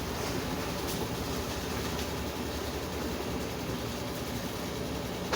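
Consul CWS 12 washing machine running with a load of sheets and towels: a steady mechanical hum and rumble, with a short click near the end.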